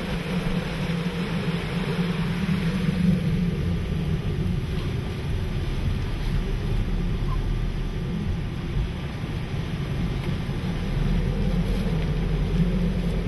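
Hurricane-force wind and rain buffeting a vehicle, heard from inside the cabin as a steady low rushing noise.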